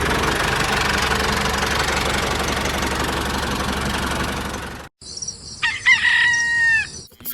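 An engine running steadily with a low hum, cutting off suddenly about five seconds in; then a rooster crows once.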